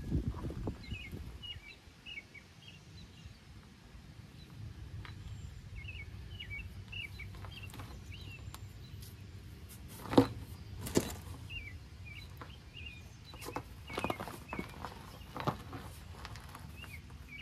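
Small birds chirping again and again over a low outdoor rumble. Past the middle come two sharp knocks and then a few softer ones, as a steel trailer wheel is lifted and fitted onto the hub's studs.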